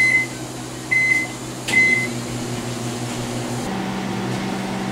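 Microwave oven: three short high keypad beeps about a second apart as it is set, then the oven running with a steady hum.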